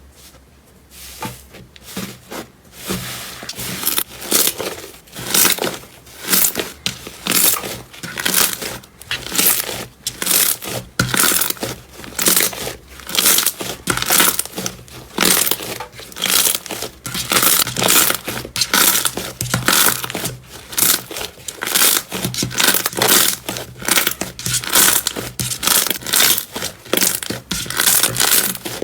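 Slime being squeezed and pressed by hand, giving repeated wet crackling and popping squishes about one to two a second.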